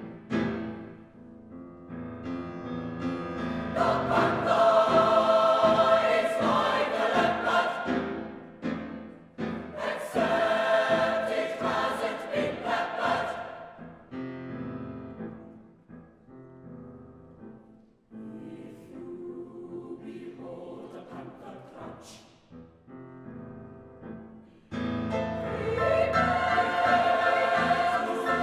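Mixed-voice school choir singing with grand piano accompaniment. The phrases swell loud and fall away, there is a softer, sparser passage through the middle, and the full choir comes in loudly again near the end.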